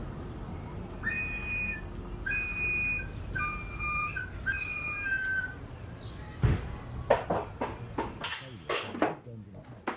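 Clear whistled notes in four short phrases, two pitches at once, like birdsong, over a steady low background. From about six seconds in, an irregular run of sharp knocks and clatters takes over.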